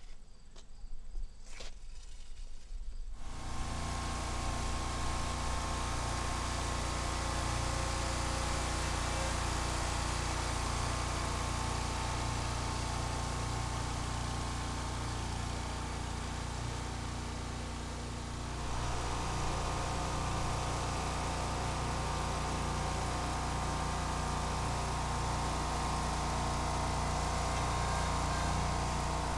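A few knocks, then an engine comes in suddenly about three seconds in and runs steadily, its tone shifting slightly about eighteen seconds in.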